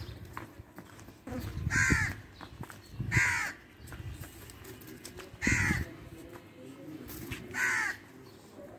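A crow cawing four times, one short call every couple of seconds, over a low rumble.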